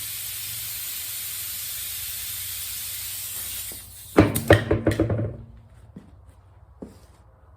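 Compressed-air tool hissing steadily for a few seconds, then stopping; about four seconds in, a second of loud rapid hammering, like an air impact wrench working a wheel lug nut, followed by a couple of light clicks.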